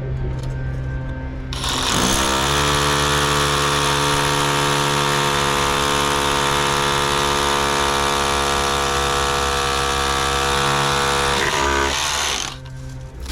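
Power drill spinning up about a second and a half in, then running steadily under load for about ten seconds while boring through the building toward the outside, and winding down near the end.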